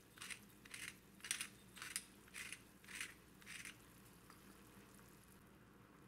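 Faint crisp crunching, about two strokes a second, seven or so in a row, stopping a little before four seconds in: crisp vegetables being cut or crushed.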